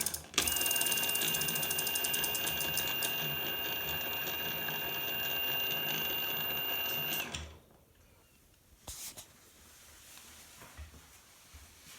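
Bafang BBS02 750 W mid-drive e-bike motor running with a steady high whine and rapid ratcheting, gear-like clicking. This is the strange noise the motor is making. It cuts off about seven seconds in, followed by a single click a little later.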